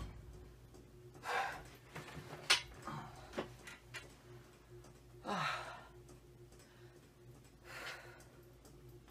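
Heavy breathing after a bench-press set: a few breathy exhales spaced a couple of seconds apart, one ending in a voiced sigh that falls in pitch about five seconds in. A sharp click comes about two and a half seconds in.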